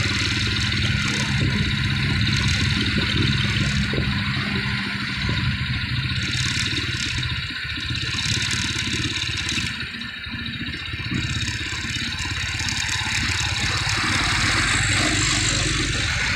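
A heavily loaded truck's engine drones steadily as it climbs, heard from close behind. Road and wind hiss run over it, growing a little near the end.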